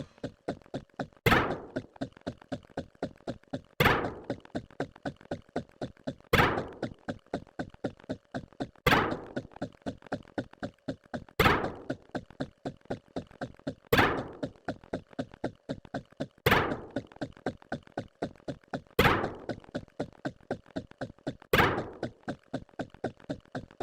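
A repeating run of knocks: light taps at about four a second, with a heavier thunk every two and a half seconds, in an even, looped pattern.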